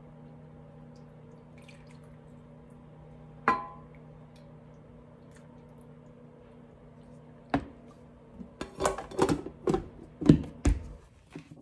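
Kitchen utensils on ceramic dishes: one sharp clink with a short ring, then from about two thirds of the way in a quick run of knocks and clatters as a silicone spatula taps and scrapes against a ceramic bowl and baking dish. A steady low hum runs underneath.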